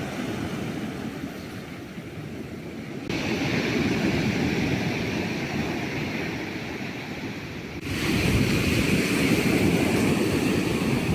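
Stormy Black Sea surf washing on the shore, with wind rumbling on the microphone. The sound changes abruptly about three seconds in and again near eight seconds, growing louder each time.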